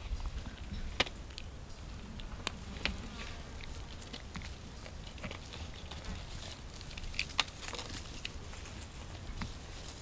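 Vervet monkeys handling a card-covered book and shifting in dry grass and leaf litter: scattered sharp clicks and light rustling, a few louder snaps standing out about a second in and near three-quarters of the way through.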